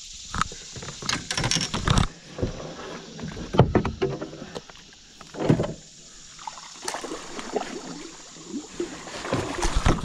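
Canoe being paddled: the paddle splashing in the water in irregular strokes, with scattered sharp knocks.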